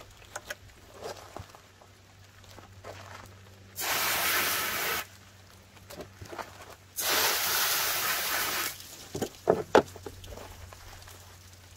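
Pistol-grip spray nozzle on a water hose spraying water in two bursts, the first about a second long and the second about a second and a half. A few light knocks follow near the end.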